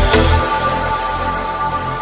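Electronic background music. The drum beat drops out about half a second in, leaving held synth tones.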